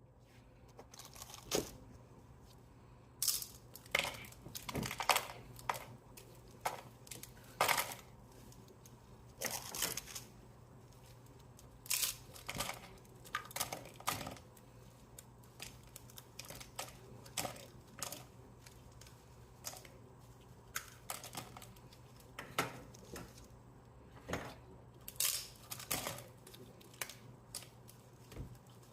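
Irregular sharp crackles and snaps during cleanup in a candy kitchen, coming one to a few every second or two with no steady rhythm, over a faint steady low hum.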